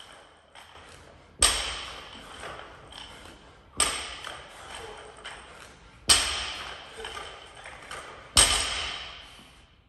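A loaded barbell with bumper plates hitting the gym floor four times, about every two and a half seconds, as it comes down between power cleans. Each heavy thud is followed by the steel bar ringing and fading out.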